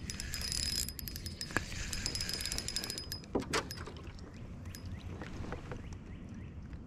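Rapid ticking of an ultralight spinning reel being cranked as a hooked bluegill is reeled in, with a thin steady whine under it for about three seconds, then a couple of knocks about halfway through.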